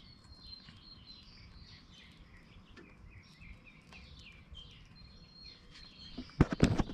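Birds chirping over and over in the background, quietly, with a quick run of loud, sharp knocks near the end.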